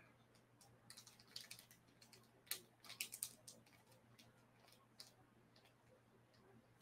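Faint, irregular clicking of computer keys and mouse buttons in small clusters, most of it between one and three and a half seconds in, over a faint steady low hum.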